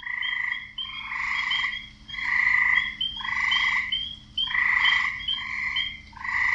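Frogs calling in a wetland chorus: croaks about one a second, each lasting under a second, with short higher chirps between them.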